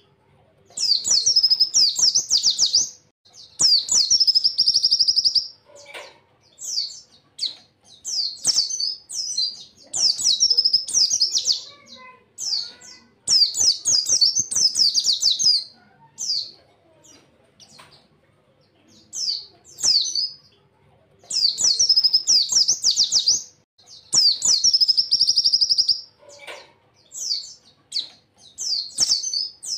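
Pleci (white-eye) singing loud, high-pitched bursts of rapid warbling phrases, each a second or two long, with short pauses between. Some phrases end in a dense buzzy trill.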